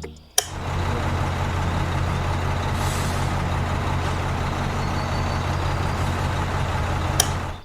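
Heavy machine running steadily, a low engine-like hum under a constant hiss, switched in with a sharp click about half a second in and cut off abruptly near the end.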